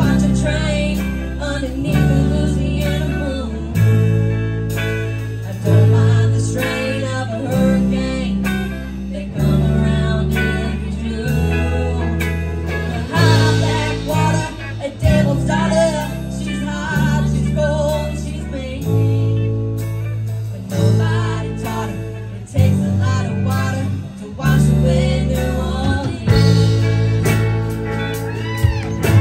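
A live band playing: electric guitars, bass and drums, with the bass line moving to a new note about every two seconds.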